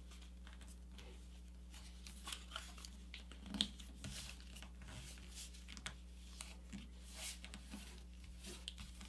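Faint rustling and creasing of a sheet of paper being folded and pressed flat by hand, with scattered soft crinkles and one louder crinkle about three and a half seconds in, over a low steady hum.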